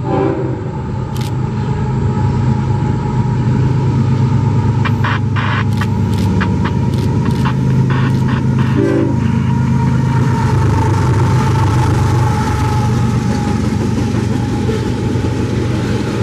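CSX diesel freight locomotive and train running by, a heavy steady engine rumble that builds over the first few seconds and then holds. A quick run of sharp clicks comes about five to nine seconds in.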